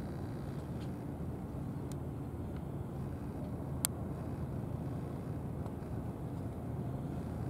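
Steady low outdoor background rumble with a faint hum in it, broken by one sharp click about four seconds in and a few fainter ticks.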